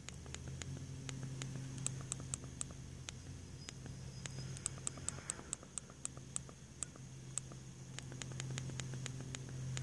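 Many small sharp clicks at irregular spacing, a few a second, like the tactile buttons of a DSO Nano pocket oscilloscope being pressed through its settings, over a steady low hum.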